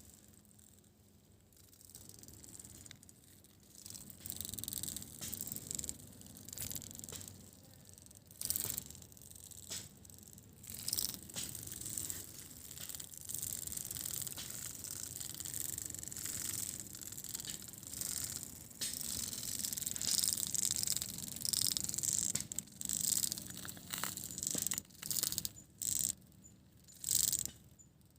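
Termites rattling in waves of rapid, dense clicking as they bang their heads against the nest: an alarm signal when disturbed or threatened. The rattle swells about four seconds in and breaks into short separate bursts near the end.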